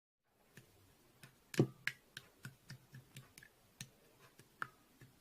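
A dozen or so light, sharp clicks or taps at an uneven pace, the loudest about a second and a half in.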